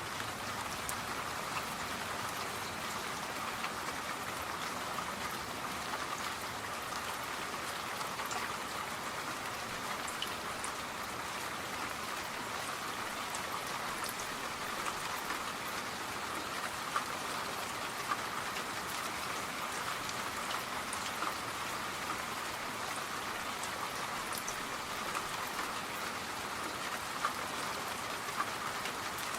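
Steady rainfall: an even hiss of rain with scattered individual drop ticks.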